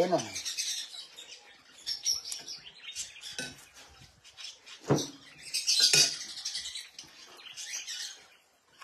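Small clinks and eating sounds at a table, with caged birds chirping now and then.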